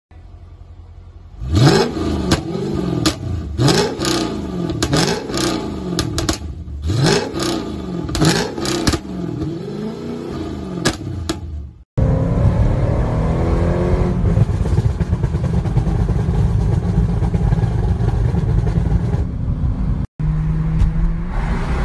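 Mercedes C55 AMG's 5.4-litre V8 revved repeatedly through its quad-tip exhaust, the revs climbing and falling about once a second, with sharp pops and crackles from the exhaust. About halfway through, it cuts to the engine pulling steadily under acceleration, heard from inside the car as a loud low drone.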